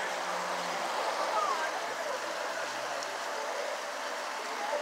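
Steady, even background rush of outdoor noise with faint distant voices now and then.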